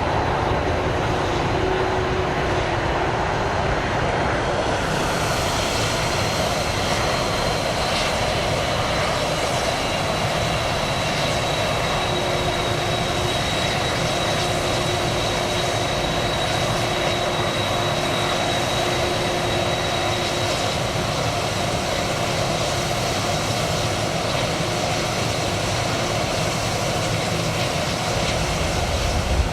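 Jet airliner engines running steadily, with a thin high whine that comes in about five seconds in and fades away after about twenty seconds.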